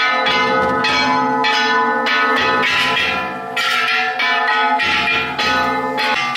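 Large hand-held bronze gongs (kane) of an Ishidori festival cart being struck over and over, about two clangs a second, their ringing piling up. Taiko drum beats sound beneath.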